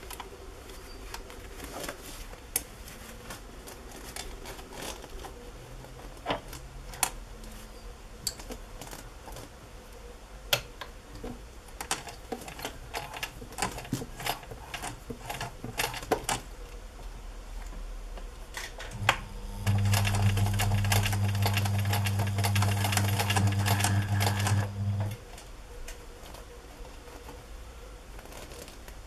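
Light scattered clicks and rustling as fabric and bias binding are handled and positioned at a sewing machine. About two-thirds of the way in, the electric domestic sewing machine runs steadily for about six seconds, stitching the bias binding on, then stops abruptly.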